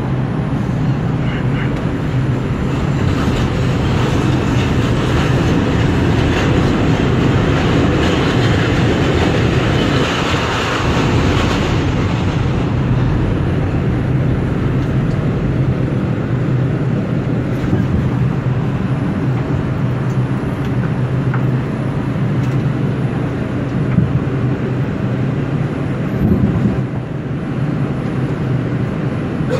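New York City subway 4 express train running at speed in a tunnel, heard from inside the car: a steady rumble and hum of wheels and motors, with a louder hissing rush of wheels on rail for several seconds in the first half.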